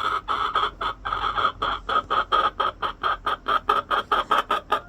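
Hen squawking in a fast string of loud, repeated calls, about five a second and quickening near the end. The keeper takes it for the hen's anger at another hen sitting in her nest box.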